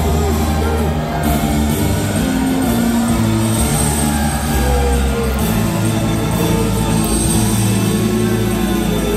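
Loud music with held, heavy bass notes and sustained higher notes.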